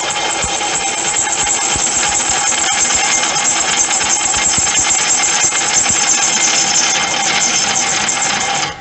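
A carbide cutoff tool cuts into a cast-iron brake drum that is spun by a car's front drive wheel, used as a makeshift lathe. The result is a loud, steady metal-cutting screech with a ringing tone from the drum, and it cuts off abruptly just before the end.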